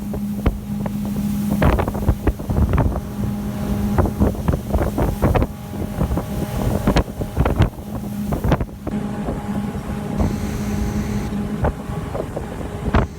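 Motorboat engine running with a steady hum, under heavy wind buffeting the microphone in irregular gusts and thumps.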